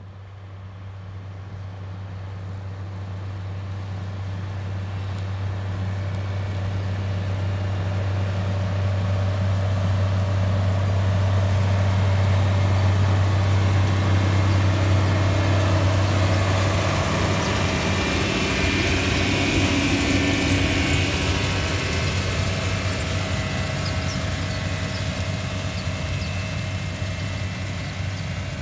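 A Case International 7110 Magnum tractor's turbocharged six-cylinder diesel engine running steadily as it pulls a corn planter. It grows louder as the tractor approaches, is loudest about halfway through as it passes close by, and then fades as it moves away.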